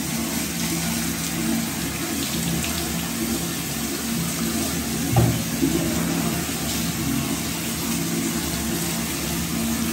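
Water poured steadily from a plastic mug over a cat's back, splashing onto its fur and the floor of the bath. A brief knock about halfway through.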